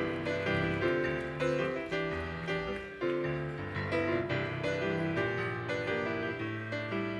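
Piano music: chords struck every half second or so, each ringing and fading before the next.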